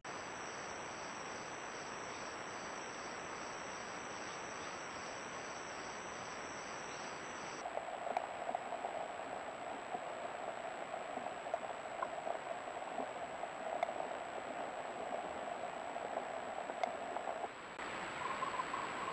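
Camera-trap forest ambience of insects. A high, pulsing cricket-like trill sounds over steady hiss for the first seven or eight seconds. After a cut it gives way to a lower, rough-textured insect drone, with a faint steady high whine throughout.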